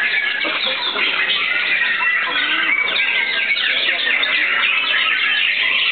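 Caged white-rumped shamas (murai batu) singing at once, a dense unbroken chorus of rapid whistled phrases and chirps.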